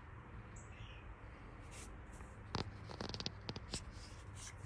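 A few faint, short clicks and taps over a low steady hum, most of them bunched together from about two and a half seconds in.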